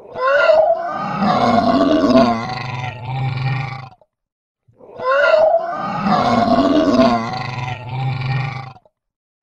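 Dinosaur roar sound effect, played twice: two identical roars about four seconds each, each opening with a rising cry.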